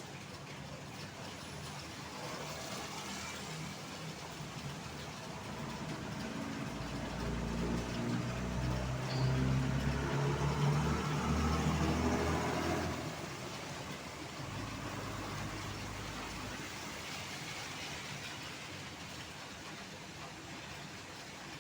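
A heavy diesel vehicle passes close by, its low engine drone building, peaking in the middle and dropping away sharply about thirteen seconds in, over a steady hiss of rain and traffic on a wet road.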